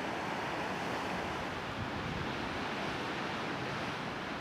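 Ocean surf breaking along the coast, heard as a steady, even rush with some wind.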